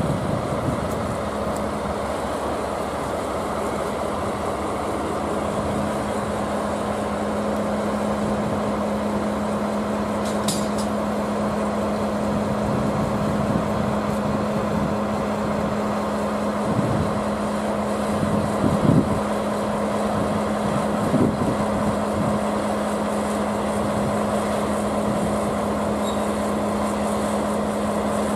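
Standing locomotives, a DE10 diesel-hydraulic coupled to a C11 steam locomotive, making a steady engine hum with one constant low tone. A short high hiss comes about ten seconds in, and a few brief low knocks come between about 17 and 21 seconds in.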